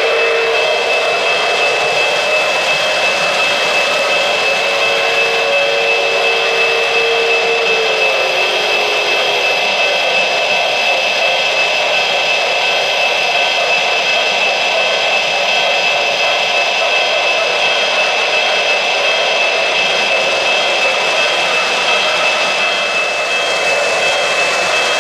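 O-gauge three-rail model trains running on the track: a steady whir of motors and wheels on rail, with a constant high whine and a lower tone that comes and goes in the first few seconds.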